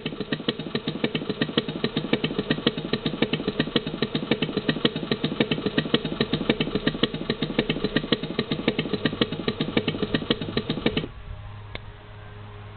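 Electronic sound-effect unit playing a recorded Harley-Davidson Panhead V-twin idling, a steady pulsing beat. It cuts off suddenly near the end, leaving only a faint low hum.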